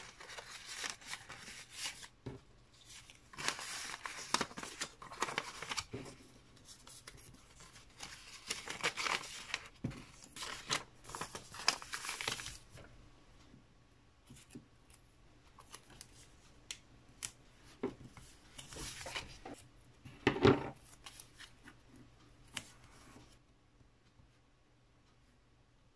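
Paper packaging handled close up: paper stickers slid into a paper envelope and the envelope folded, the paper rustling and crinkling in bursts. Sparser rustles and clicks follow, with one sharp knock on the table about twenty seconds in.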